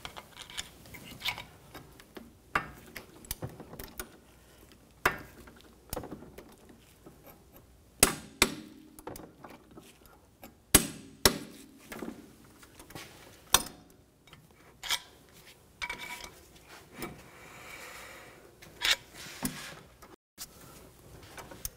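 Metal tool clicks and clinks from a socket, long extension and wrench working the bolts of a CV axle's inner joint flange. Sharp irregular clicks come a second or more apart, with a few louder knocks.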